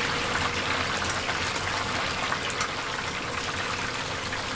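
Hot oil in a cast-iron cauldron deep-frying a whole chicken: a steady sizzle and bubble with many small crackles.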